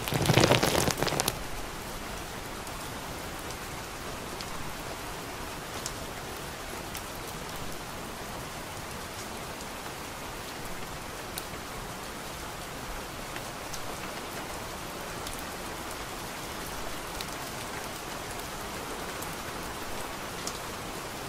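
Steady rainfall with scattered faint drop ticks, after a louder burst of noise in the first second or so.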